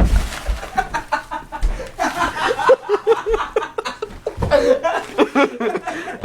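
A combat-boot kick lands on a wad of bubble wrap with a single dull thump right at the start, then several young men break into loud, rapid laughter.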